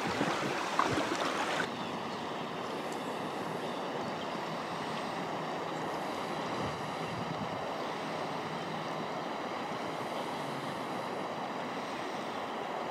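River water rushing: a steady, even wash, with a couple of light knocks in the first second.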